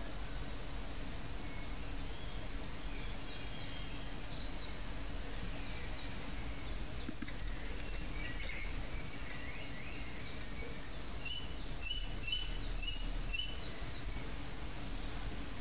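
Small birds chirping in the background: runs of short, high chirps several to a second, with quick trilled phrases around the middle, over a steady low hum.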